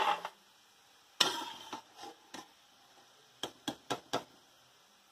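Metal perforated skimmer clinking against a steel kadhai while lifting fried potato fries out of the oil. There is a sharp clink at the start and another about a second in, then a quick run of four clinks near the end.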